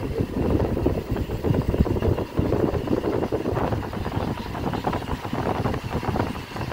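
Vehicle driving along a road: engine and road noise, with wind rushing past an open window and buffeting the microphone.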